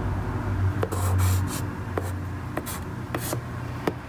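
Pencil drawing on paper: a run of short, scratchy strokes as lines are sketched. A low steady hum underlies it, strongest in the first second and a half.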